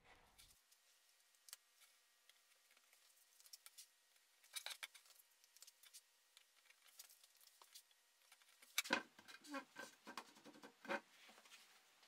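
Faint clicks and light rustling as hands handle a 3D-printed plastic enclosure and press small rubber feet onto it. A cluster of louder taps and knocks comes about nine seconds in.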